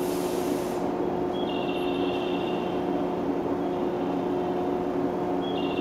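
Stationary 113-series electric train standing at the platform with a steady hum from its running onboard equipment. A short hiss comes right at the start, and faint high two-tone beeps sound twice, about two seconds in and near the end.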